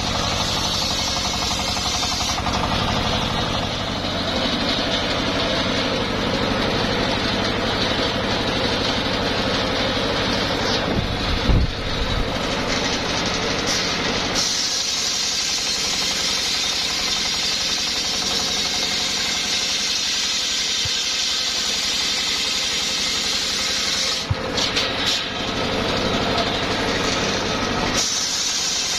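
Homemade circular sawmill running steadily as its blade rips a coconut palm log. The sound changes character a few times as the cut goes on, with a short heavy knock about eleven seconds in.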